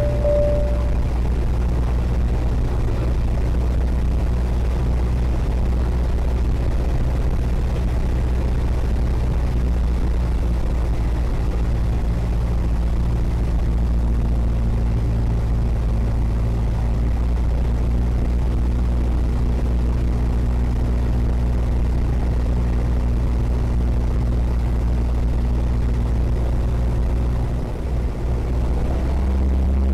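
Cessna 172's piston engine and propeller droning steadily in cruise, heard from inside the cockpit. There is a brief dip in the sound near the end.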